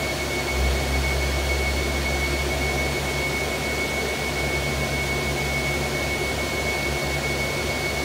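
A machine running steadily: an even whirring noise with a thin, constant high whine over a low hum.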